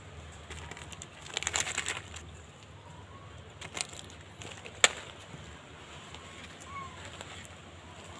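Outdoor ambience with a brief crackling rustle about a second and a half in and one sharp click near the middle, over a few faint bird chirps.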